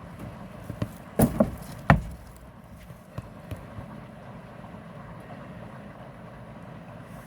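A few knocks or bumps a little over a second in, the last the loudest, over steady background noise.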